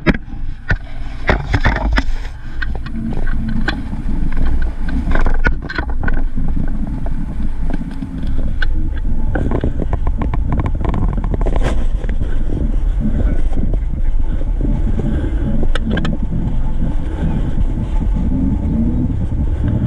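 A vehicle's engine and road noise heard from an onboard camera while driving: a steady low rumble with the engine note rising and falling, and a run of knocks and rattles in the first six seconds.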